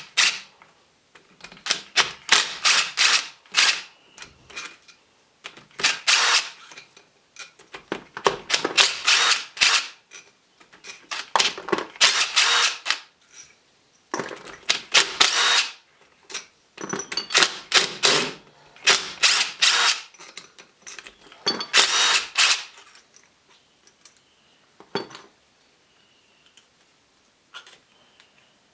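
Socket ratchet clicking in quick runs of about a second each as it undoes the bolts holding the brass head onto a triplex plunger pump. The runs stop about 23 seconds in, and only a few single clicks follow.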